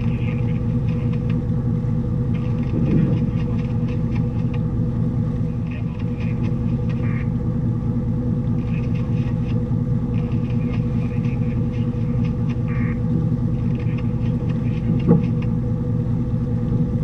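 Barge's inboard engine idling steadily with an even low rumble, with one short knock near the end.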